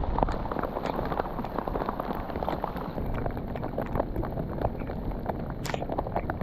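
Rain falling close around the microphone: a dense, irregular patter of drop impacts over a low wind rumble.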